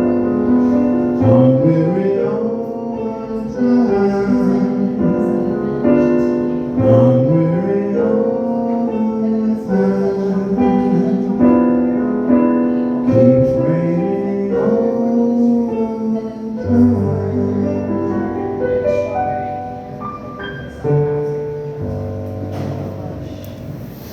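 Piano playing the slow closing bars of a ballad in sustained chords, with a voice sliding through wordless notes over it.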